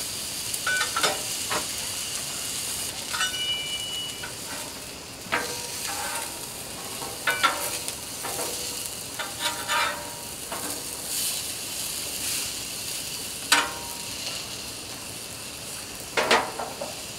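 Sausage patties sizzling on a Blackstone flat-top griddle, a steady frying hiss. Short scrapes and clicks of a utensil on the griddle come now and then through it.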